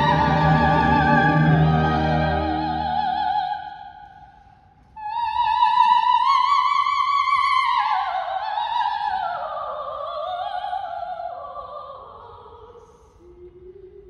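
Operatic soprano singing with wide vibrato over the orchestra; the orchestra drops out about three and a half seconds in. After a short gap she sings on alone: a high held note, then a line falling step by step, ending near the close.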